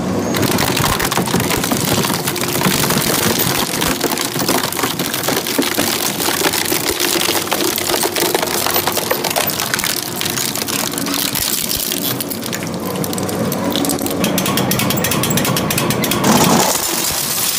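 Twin-shaft shredder's hooked cutters tearing apart a hard-shell suitcase: continuous dense crunching and cracking as the shell is ripped and crushed.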